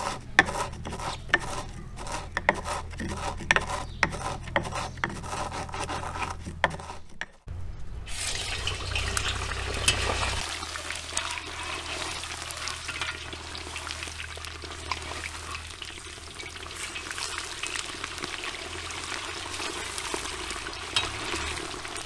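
A wooden pestle pounding cumin seeds and black peppercorns in a wooden mortar, a run of steady strikes. About seven seconds in the sound changes to chunks of lamb sizzling in hot oil in a kazan over maximum heat, the meat being moved with a metal skimmer.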